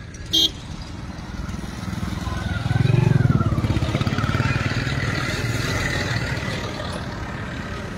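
Motorcycles and cars passing close on the road, their engines running in a steady low rumble that swells about two to three seconds in and slowly eases off. A short, loud beep sounds just under half a second in.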